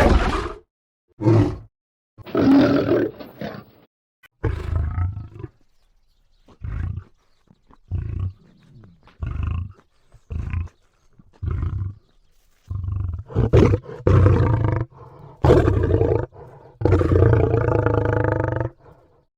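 Sound effects of an animated cat-like monster: about a dozen separate roars and growls with short silences between them. The quieter, shorter calls come in the middle, and the last one is a longer roar of about two seconds.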